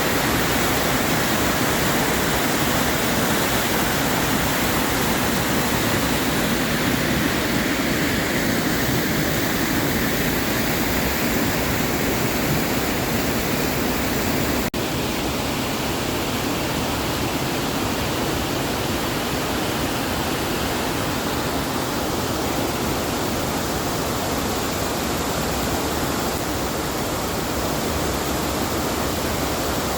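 Waterfall rushing: a steady, even noise of falling water, with a split-second dropout about halfway, after which it is slightly quieter.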